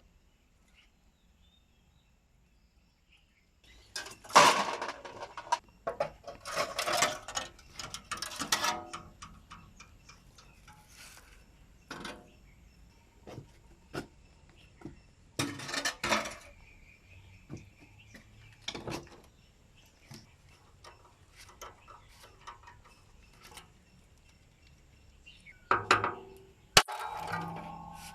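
Irregular metallic clinks, knocks and clatters of hand tools and metal parts being handled during motorcycle restoration work. Heavier clusters come about four seconds in, again around sixteen seconds, and near the end.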